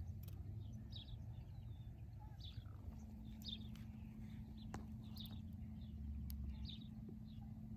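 A small bird chirps repeatedly, with short high chirps about every half second, over a low rumble of wind on the microphone.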